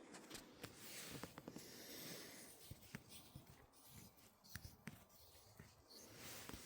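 Near silence, broken by faint scattered clicks and soft rustling, like small objects being handled close to the microphone.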